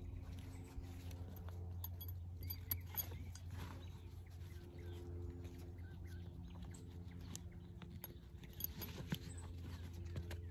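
Faint handling sounds of a leather strap being pulled through the metal D-rings of a canvas saddlebag: scattered small clicks and rustles, over a steady low hum.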